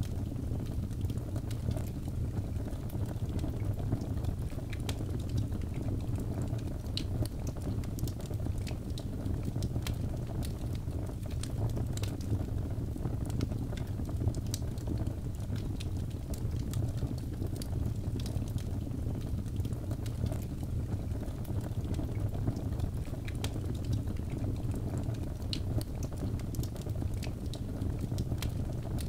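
Birch logs burning in a fireplace: a steady low rumble of flames with frequent small sharp crackles and pops.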